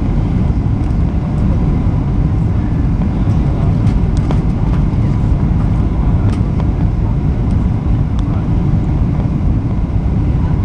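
Cabin noise inside a Boeing 737-800 on final approach with flaps extended: a steady low rumble of the engines and rushing air.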